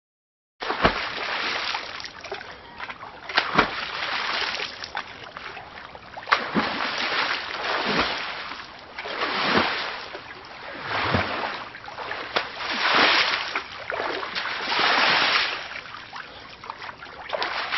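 Water splashing and sloshing in repeated surges every second or two, with a few sharper splashes.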